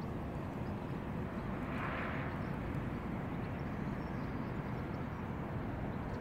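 Steady low rumble of outdoor background noise, with a brief soft hiss about two seconds in.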